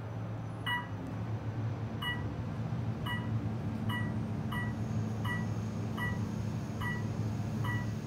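Otis elevator car descending, with a steady low hum of the ride and a short electronic beep about every three-quarters of a second, one for each floor it passes.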